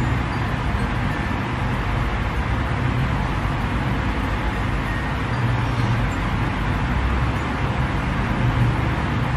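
Steady background noise: an even hiss over a low rumble, unchanging throughout.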